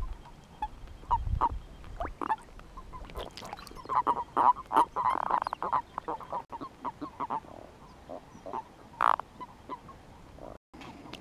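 Common toads croaking in short, repeated calls during spawning, with males piled onto females in mating balls in the water. The calls crowd together about four to six seconds in, and one louder croak comes about nine seconds in.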